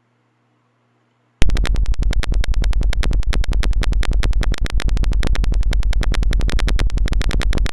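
Simulated piezo speaker of a Tinkercad door-alarm circuit sounding: a loud, harsh crackling buzz made of rapid clicks that starts suddenly about a second and a half in.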